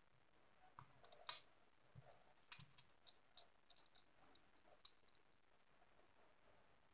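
Faint, irregular small clicks and ticks of soldering work: the iron and a wire tapping and scraping against a circuit board as a ground wire is soldered on. The clicks are loudest about a second in and die away about five seconds in.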